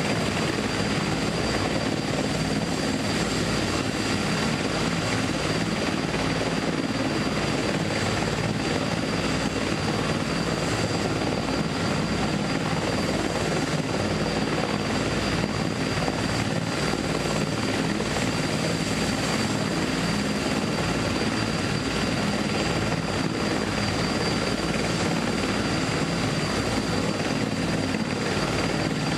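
Steady engine drone, unchanging, with a faint high whine above it.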